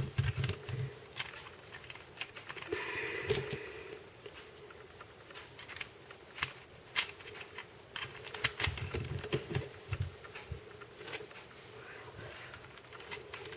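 Irregular light plastic clicks and taps of helicopter cube puzzle pieces being handled and pushed into place as edge pieces are fitted back in.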